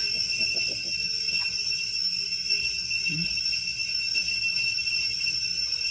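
A steady, high-pitched drone of forest insects, several tones held together without a break, with a short low sound about three seconds in.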